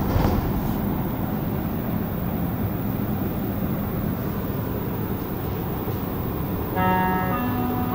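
Steady noise inside a Montreal Metro train car. Near the end comes the door-closing chime, a short run of stepped tones rising in pitch.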